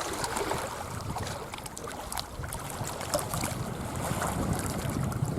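Wind blowing across the microphone: a steady rushing noise with scattered small clicks.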